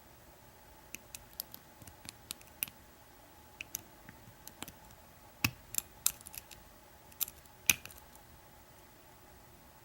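Lock pick and tension wrench working the pins of an American 1100 padlock: irregular sharp little metal clicks, loudest about five and a half and seven and a half seconds in. The lock is held in a false set, a spool pin being worked toward shear.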